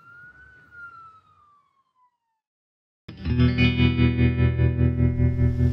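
A single siren wail fades out, rising then falling in pitch. After a second or so of near silence, loud music with a pulsing low beat starts suddenly about three seconds in.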